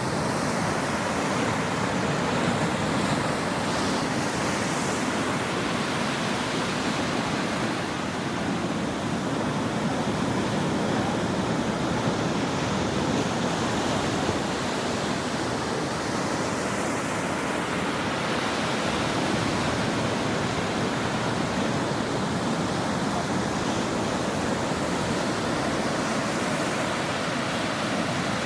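Ocean surf breaking on a shore in a steady, continuous wash of noise, with no separate wave crashes standing out.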